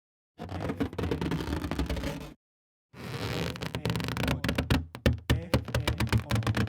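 Latex balloon sound effects played as two separate takes: a low, buzzy rubbery sound, then after a short gap another that breaks into rapid crackling clicks and squeaks, like latex being stretched and rubbed.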